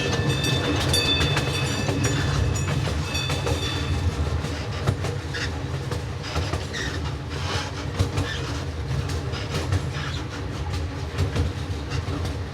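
Miniature railroad train running along its track, a steady low rumble with wheels clacking over the rail joints. A railroad crossing bell rings repeatedly for the first few seconds, then stops.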